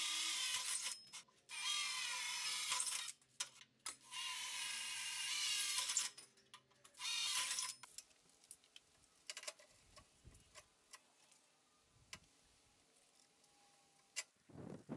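Cordless drill boring into steel tube, in four runs with short pauses, the bit cutting with a loud high-pitched hiss. After that come faint clicks and light knocks of steel frame parts being handled.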